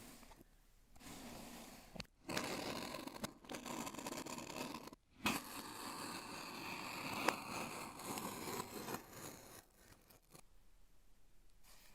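Rustling and scraping as packaging and the phone are handled, with a sharp click about seven seconds in.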